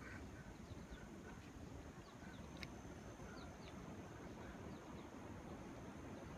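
Quiet outdoor background hiss with scattered faint, short high chirps from small birds, and one brief click about two and a half seconds in.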